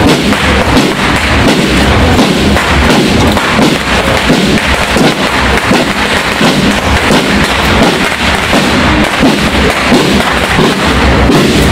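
Marching-band drums played loud and close, a dense run of heavy bass-drum thumps with sharp strokes over them.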